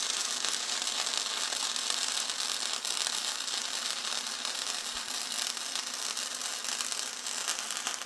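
Vulcan MigMax 215 MIG welder running 0.030 flux-core wire: the arc crackles steadily through one continuous bead on 16-gauge steel square tube, then cuts off sharply at the end.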